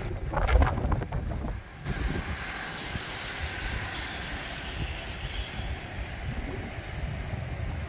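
Wind rumbling on a phone's microphone over a steady outdoor hiss, louder for the first two seconds.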